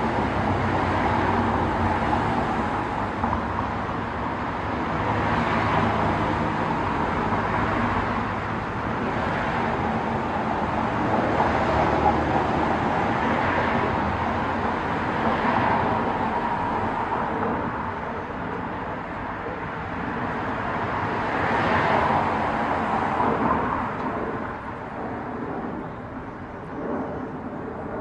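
Road traffic going by, a steady wash of noise that swells and fades every few seconds as vehicles pass.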